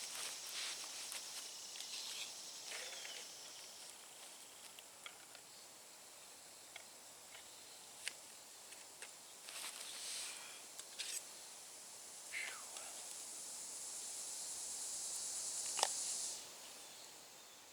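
Insects singing in a steady, high-pitched drone in the evening woods. One chorus fades out after about four seconds, and another swells from about ten seconds in until it cuts off near the end. Scattered light clicks and knocks sound now and then.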